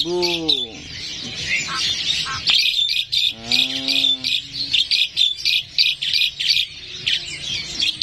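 Caged songbirds chirping and twittering rapidly and without a break, with a brief drawn-out call about three and a half seconds in.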